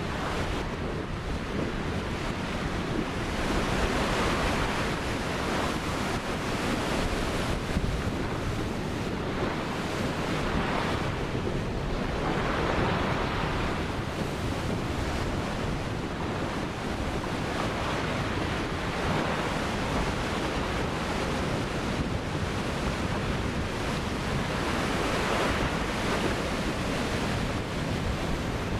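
Ocean surf: waves breaking and washing in, the rushing sound swelling and easing every few seconds.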